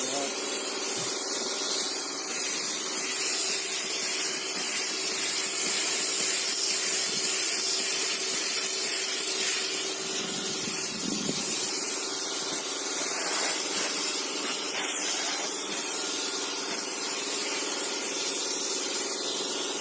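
Steady hissing noise over a constant low machine hum.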